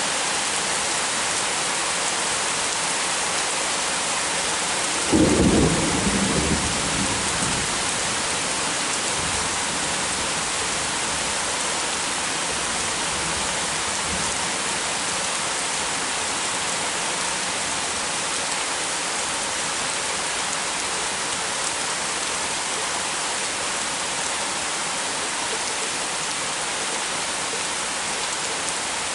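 Heavy rain falling steadily, with a sudden close thunderclap about five seconds in that rumbles away over the next few seconds.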